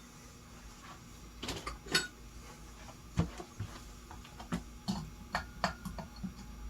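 Irregular light clinks and knocks of small hard objects being handled, about a dozen in all, the sharpest about two and three seconds in.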